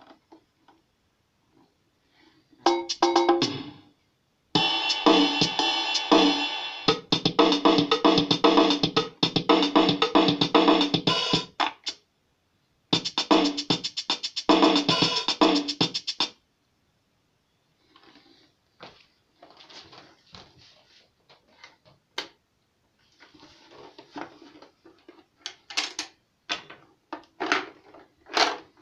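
Yamaha DD-6 electronic drum pad playing its built-in drum rhythm patterns in a few loud stretches that stop and start as styles are selected. After about 18 seconds the drumming stops, leaving faint clicks and rattling of the plastic case being handled.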